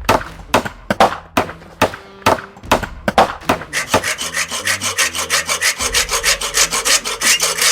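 Rasping saw strokes cutting into ice, slow at first at about two strokes a second, then quickening to about five a second from the middle on.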